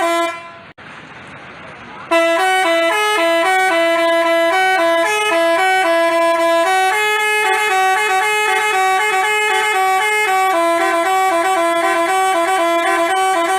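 Telolet bus horn, the Basuri musical horn, playing a fast melody of short stepping notes in two voices an octave apart, starting abruptly about two seconds in after a held horn note fades at the start.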